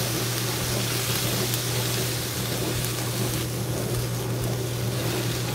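Diced vegetables and mushrooms sizzling as they stir-fry in a hot pan, a steady hiss over a constant low hum. The hiss thins briefly a little past the middle, then comes back.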